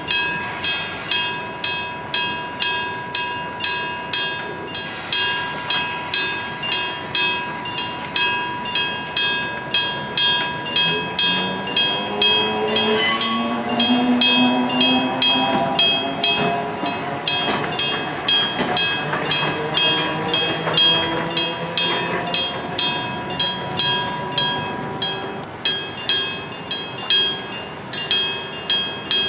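Electric-bell level crossing warning bell, its hammer striking a metal gong just under twice a second with a steady ringing ding. Midway a train passes the crossing: the locomotive's note rises in pitch as it goes by, with a brief sharp high sound about 13 seconds in.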